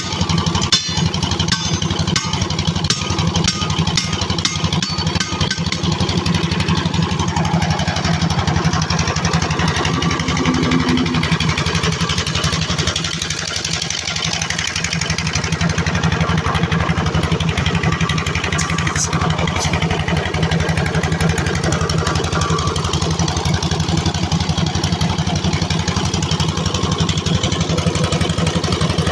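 An engine running steadily, with a few sharp knocks in the first several seconds.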